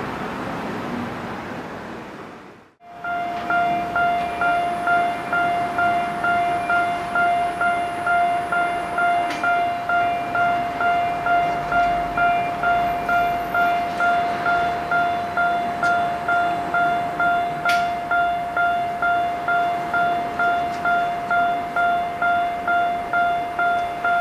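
Street traffic noise, then from about three seconds in a Japanese railway level-crossing warning bell ringing steadily, an electronic ding repeating about twice a second.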